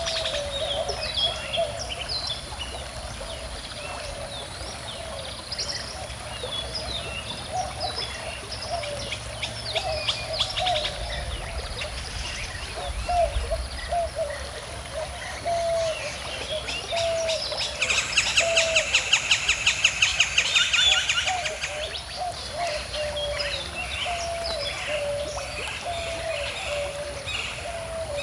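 Several wild birds singing and chirping, with a fast, loud trill of about ten notes a second a little past the middle and a lower repeated note running throughout, over faint running water.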